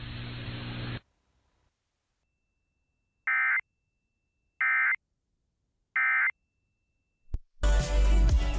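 Three short bursts of EAS digital data tones, the end-of-message signal that closes an emergency alert, each a fraction of a second long and about 1.3 s apart. Before them a steady hiss and hum of the relayed broadcast cuts off about a second in, and near the end loud music starts.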